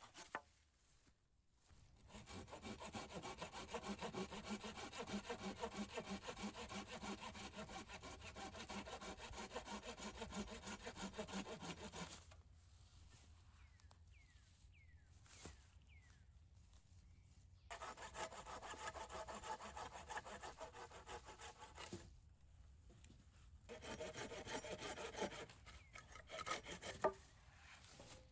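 Hand pruning saw cutting through a green willow pole, fast even rasping strokes at about three a second, in three bouts with short pauses between them. A single sharp knock near the end.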